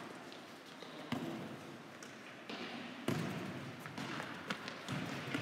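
Futsal ball being kicked and bouncing on a wooden sports-hall floor: a few sharp thuds, each echoing in the hall, the loudest about three seconds in.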